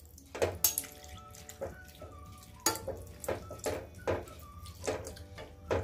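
Warm milk being poured into a pan of grated beetroot fried in ghee, with a spoon knocking against the pan several times as it stirs. Soft background music with held notes and a repeating melody plays underneath.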